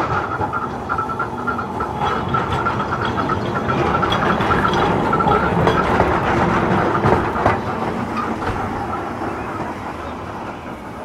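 Narrow-gauge double-deck electric tram running past on street-embedded rails, with a steady high whine and scattered clicks and clanks. It grows louder as it draws level about halfway through, then fades as it moves away.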